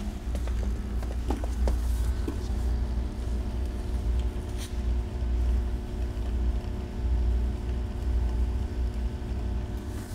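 A stage hazer running, a steady low rumble with a constant hum. A few light clicks and knocks come in the first couple of seconds and once more a little before the middle.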